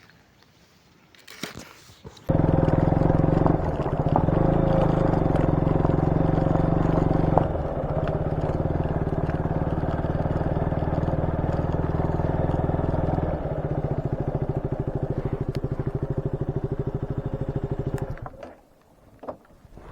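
Motorcycle engine running under way. It comes in abruptly about two seconds in, steps in pitch three times, and cuts out about eighteen seconds in.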